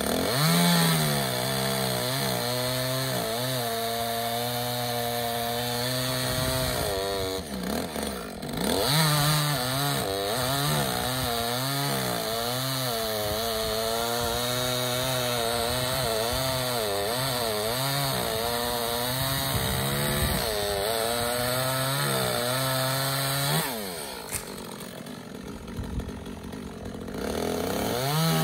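Two-stroke chainsaw at full throttle cutting wood, its engine pitch wavering up and down as the chain bites and frees. It drops off briefly about a quarter of the way in and again near the end, then revs back up.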